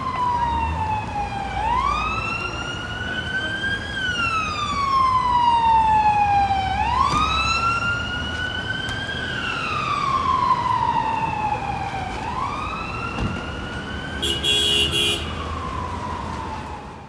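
Emergency vehicle siren on a slow wail from an FDNY paramedic fly car, rising and falling about every five seconds over city traffic. A short horn blast sounds near the end.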